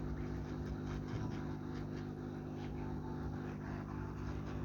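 A steady low mechanical hum, even in level, with faint small clicks over it.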